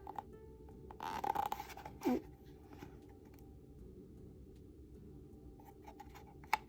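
A page of a glossy album photobook being turned: a short paper rustle about a second in, then a light click near the end.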